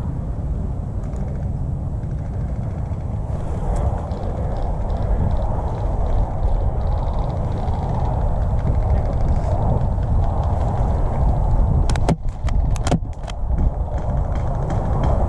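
Steady low rumble of wind buffeting a helmet camera's microphone, with a few sharp clicks near the end.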